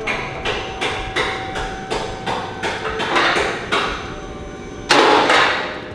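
Repeated hammer blows on metal, about three a second, in an auto exhaust shop, followed by a louder, longer burst of noise about five seconds in.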